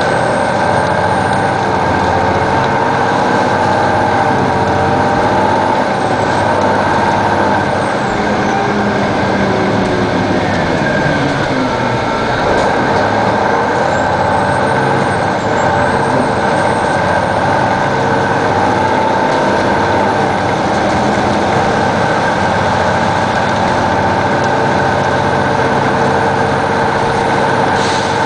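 2002 Neoplan AN460 articulated bus with a Detroit Diesel Series 60 inline-six diesel, running steadily and loudly. Several whining tones slowly rise and fall in pitch over the engine noise.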